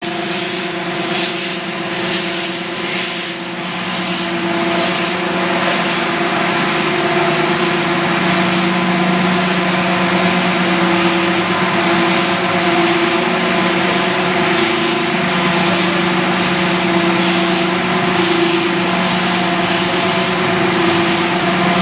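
Small floating-fish-feed production line running: the extruder, conveyors and dryer machinery give a steady motor hum with a constant drone. There is irregular clicking and rattling in the first few seconds.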